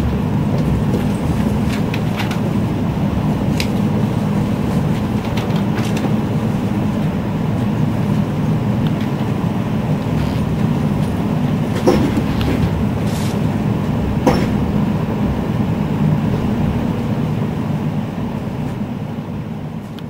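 Inside a 485-series electric limited express running slowly as it approaches its stop: a steady rumble of wheels on track, with a few sharp clicks about twelve and fourteen seconds in. The sound fades away near the end.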